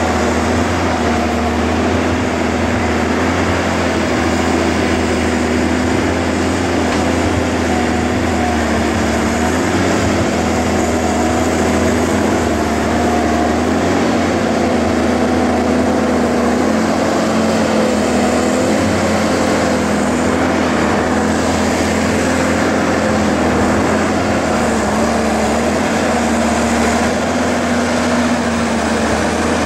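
Diesel engine of a log-loaded forestry forwarder running steadily under load as the machine crawls along on tracked bogies. The engine note holds nearly constant, wavering slightly in pitch.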